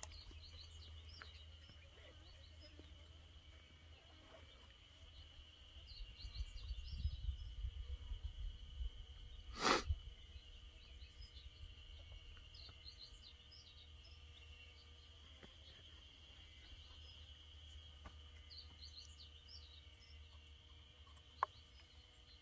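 Steady insect drone at one high pitch, with scattered short bird chirps over it. A low rumble swells for a few seconds in the middle, and one sharp knock comes about ten seconds in.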